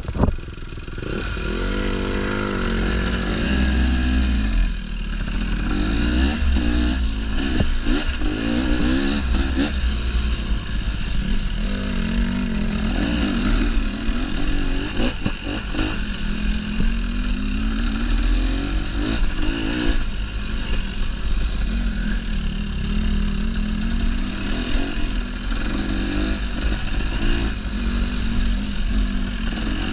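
Dirt bike engine running under constantly changing throttle, its pitch rising and falling again and again, with occasional clattering knocks.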